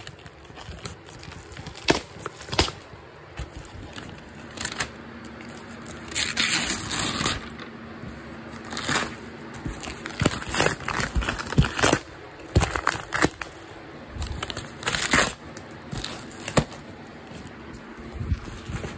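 A cardboard shipping box being wrestled open by hand, with paper and cardboard crinkling and tearing, interrupted by irregular sharp knocks and scrapes. There are longer stretches of rustling a little past a quarter of the way in and again past three quarters.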